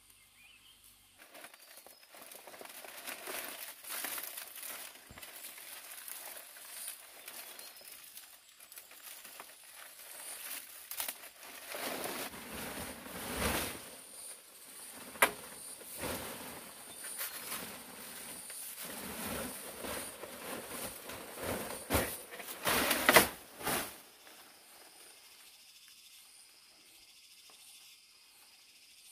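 Irregular rustling and crinkling from hands-on work. There is one sharp click about halfway through and a cluster of louder knocks and scrapes about three-quarters of the way in.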